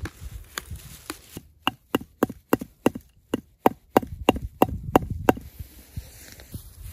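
A Helko Werk hatchet's head hammering on a flat stone: a run of about a dozen sharp, ringing metallic strikes, roughly three a second. They start about a second and a half in, after a few light clicks as a plastic lid is pressed onto a tin of nails.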